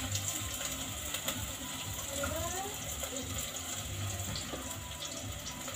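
Chopped onions sizzling in hot oil in a metal pot, with the clicks and scrapes of a wooden spoon stirring them against the pot.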